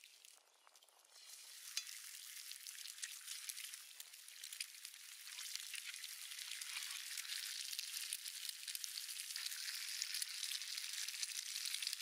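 Food frying in a pan: a steady, fine crackling sizzle that grows louder about a second in.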